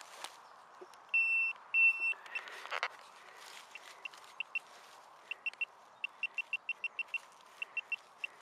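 Handheld metal-detecting pinpointer probe beeping as it is pushed through soil and mulch: two longer beeps about a second in, then a run of short beeps at the same pitch that come quicker from about six seconds in as the probe closes on a shallow buried metal target. A brief scrape of the probe in the soil about two and a half seconds in.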